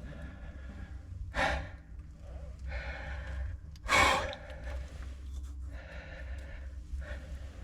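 A person breathing heavily at close range, with two strong, sharp exhales about a second and a half and four seconds in and softer breaths between them.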